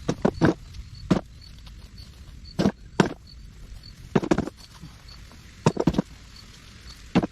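A series of sharp knocks and thuds at uneven intervals, some in quick pairs or clusters, others several seconds apart.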